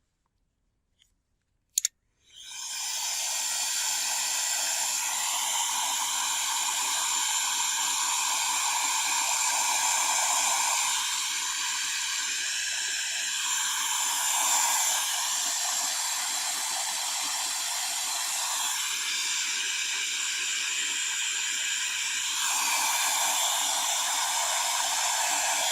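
Heat gun clicked on about two seconds in, then blowing with a steady hiss as it shrinks heat-shrink tubing over a cable joint.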